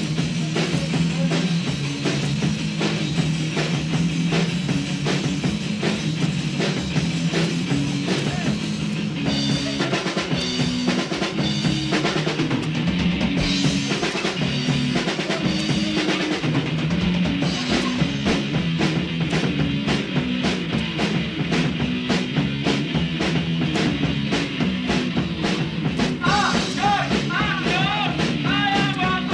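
Punk rock song playing: a full band driven by a drum kit with dense, evenly repeated hits over a steady wall of bass and guitar.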